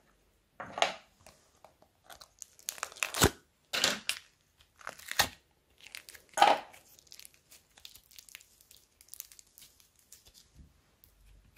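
Thick slime being pulled from plastic containers and pressed onto a heap of other slimes: several short sticky tearing, crackling sounds, then a run of fine crackles and clicks as fingers press into the slime.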